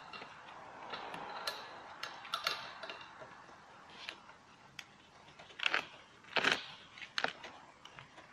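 Metal fitting of an air-conditioning charging hose being screwed by hand onto the valve of a refrigerant can: irregular small clicks and scrapes, with a few louder sharp clicks in the second half.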